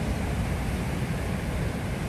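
Ocean waves breaking and washing over rocks on the shore: a steady, unbroken noise, heaviest in the low end.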